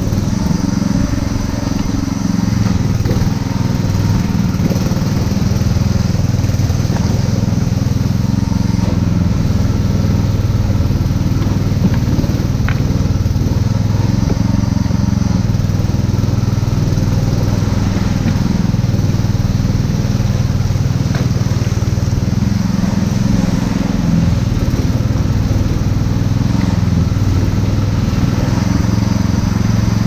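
Small outboard motor pushing a wooden longboat upriver, running steadily with small shifts in pitch.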